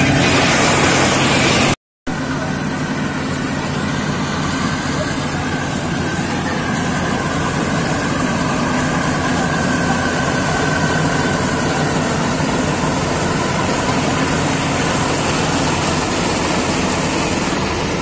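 Kartar Crop Cruiser combine harvester running steadily at work in a wheat field: a continuous drone of its engine together with the noise of the cutting and threshing machinery. The sound drops out briefly about two seconds in, then carries on.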